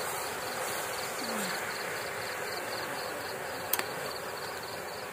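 A cricket chirping steadily, about three pulsed chirps a second, over a steady hiss; one sharp click near the end.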